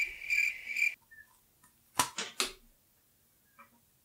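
Cricket chirping sound effect, a high chirp pulsing about two or three times a second, cut off abruptly about a second in. About a second later come three sharp knocks in quick succession, the loudest sounds here.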